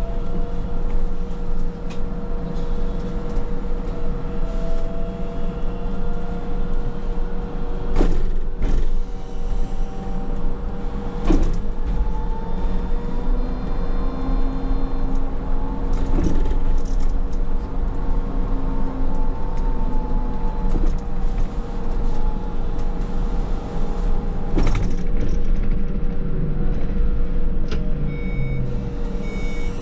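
Škoda 27Tr trolleybus under way. Its electric traction drive gives a whine whose pitch rises and falls with speed, over a steady hum and low rumble, with a few sharp knocks along the way. A repeating beep starts near the end.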